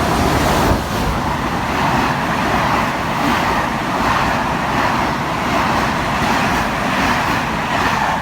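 Train running past with a steady rumble and a regular repeating beat.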